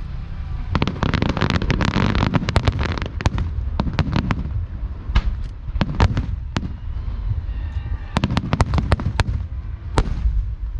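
Aerial fireworks shells bursting overhead: a dense salvo of rapid crackling cracks about a second in, then separate sharp bangs, then another rapid crackling salvo near the end and one loud bang just after it.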